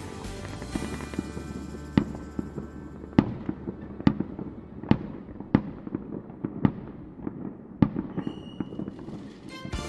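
Fireworks exploding in a display: sharp bangs at irregular intervals, about one a second.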